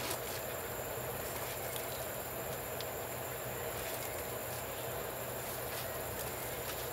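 Steady background noise: an even hiss with a constant high-pitched whine and a low hum, broken only by a couple of faint clicks.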